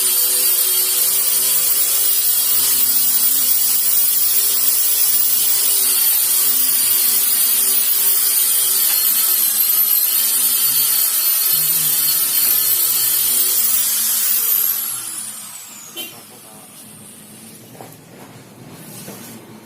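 Electric power sander running steadily on wood with a high motor whine. About three-quarters of the way through it is switched off and the whine falls away as the motor spins down, followed by a single click.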